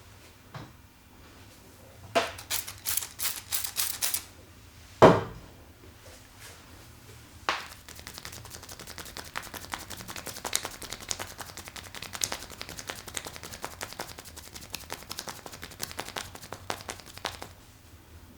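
A barber's hands striking a person's head in an Indian head massage: a quick run of sharp slaps, then one louder hit, then about ten seconds of rapid light tapping.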